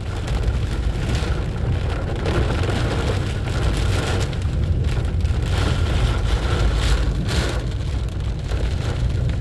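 Heavy rain falling on a car that is being driven, over a steady low rumble from the car and road. Several short swooshes rise above it along the way.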